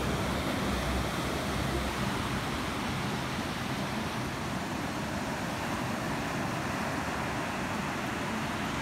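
Ocean surf breaking and washing up the sand, a steady rushing hiss.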